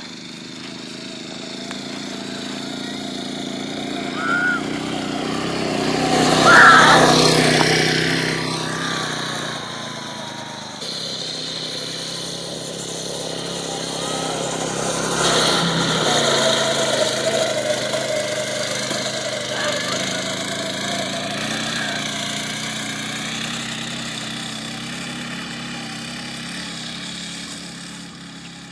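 Small dune buggy's engine running and revving as the buggy is driven around a grass field. It grows louder as the buggy comes near, peaking about 7 seconds in and again around 16 seconds, then fades as it drives off.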